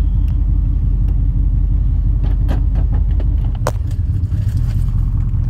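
A vehicle running, a steady low rumble with a few short clicks and rattles; the rumble changes about three and a half seconds in.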